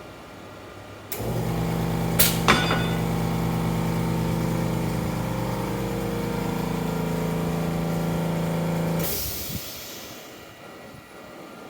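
A small motor runs at a steady pitch for about eight seconds, with two sharp clicks soon after it starts, then stops with a brief hiss.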